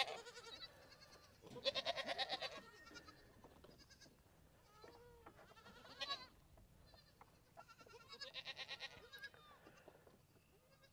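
Goats bleating: several short, wavering bleats, the loudest about two seconds in and another a couple of seconds before the end.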